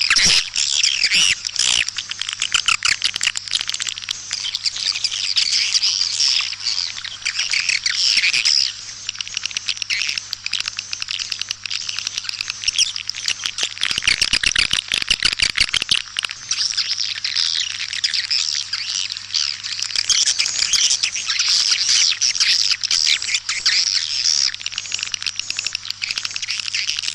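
Swiftlet lure recording of white-nest (edible-nest) swiftlets: a dense, continuous chorus of high twittering chirps, the calling sound played to draw swiftlets into a nest house. A low steady hum runs underneath, and a run of rapid clicks comes about halfway through.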